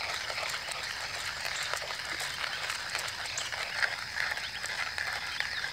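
GSI Java Mill hand coffee grinder being cranked, the beans crunching in a fast, irregular run of small clicks, over a steady high-pitched chorus in the background.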